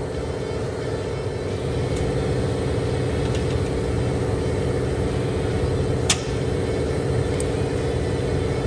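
Car running with a steady rumble, with one sharp click about six seconds in and a few fainter ticks.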